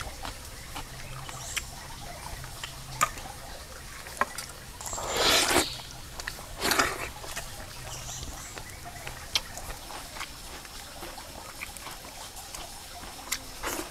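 A person eating grilled fish close up: small wet clicks and crackles of chewing and of fingers picking the flesh off the skewer. There are two louder mouth noises, about five seconds in and again a second and a half later.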